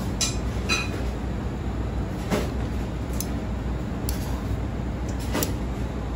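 Heavy kitchen shears snipping through a cooked king crab's shell: about six sharp clicks and cracks, spaced roughly a second apart, over a steady low background rumble.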